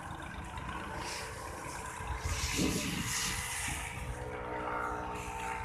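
Massey Ferguson 375 4WD tractor's diesel engine running under load as its front blade pushes heaps of loose chaff, growing louder for a moment about halfway through.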